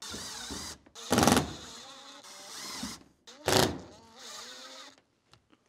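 Makita cordless screw gun driving self-tapping metal screws into a van's sheet-metal roof: the motor whines in three short runs, with two much louder bursts about a second and three and a half seconds in.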